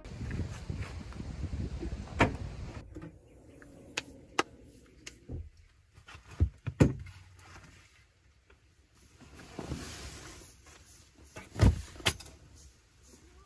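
Camping gear being handled in a car's cargo area: rustling with scattered knocks and thumps as a plastic cooler and fabric-covered bags are shifted and set down. The loudest knocks come in pairs about halfway through and near the end.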